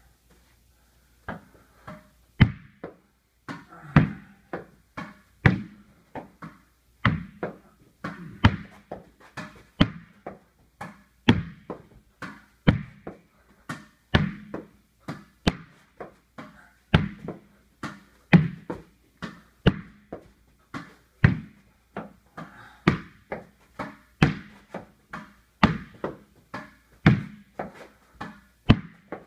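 A tennis ball struck again and again with a racket and bouncing off the hard walls and floor of a small room: a steady rally of sharp knocks, about two a second, each with a short echo, starting about a second in.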